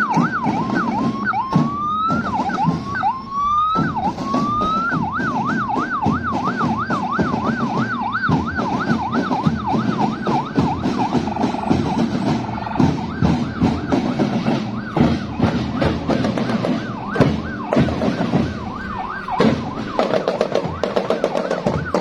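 An electronic siren rises in pitch a few times with slow sweeps, then switches to a fast yelp of about three sweeps a second, over steady marching-band drumming.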